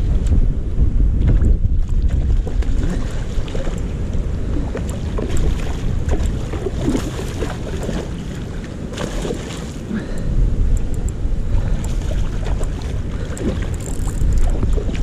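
Wind rumbling on the microphone over rushing river water, with a hooked salmon splashing and thrashing at the surface near the bank, the splashes loudest about seven and nine seconds in.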